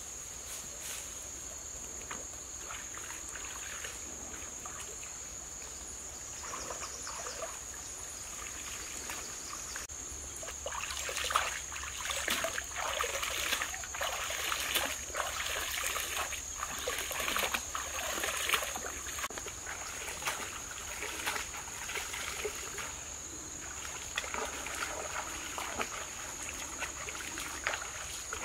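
Shallow stream water splashing and dribbling as hands work in it, irregular splashes for about ten seconds in the middle, over a steady high insect drone.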